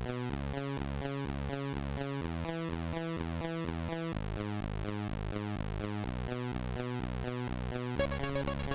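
Electronic background music: synthesizer notes stepping in a steady rhythm, growing busier near the end.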